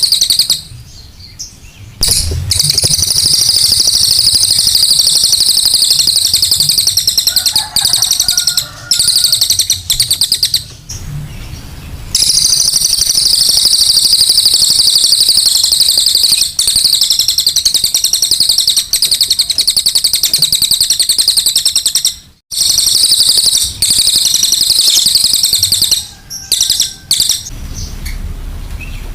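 Cililin bird singing its rough, coarse-voiced song: long runs of rapid, high-pitched trilling chatter broken by a few short pauses. It is a lure recording of the kind played to caged birds to spur them into song.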